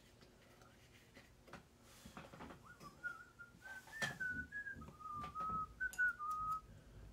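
A person whistling a short tune, a string of held notes stepping up and down, starting about three seconds in and stopping near the end, over faint taps and rustles.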